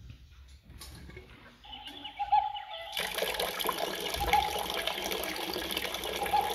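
Water starts running from an alkaline water ionizer's outlet about three seconds in and then flows steadily, like a running tap. A faint steady hum sets in shortly before the water starts.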